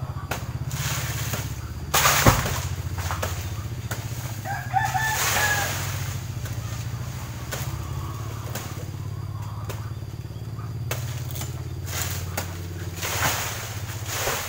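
A steady low engine-like hum throughout, with a rooster crowing once about four to five seconds in and a few brief rushing noises.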